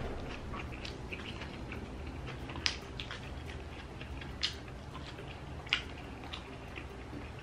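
Close-miked eating sounds of people eating grilled meat and rice by hand: soft chewing and mouth smacks, with three sharp, brief wet clicks spread through, over a low steady hum.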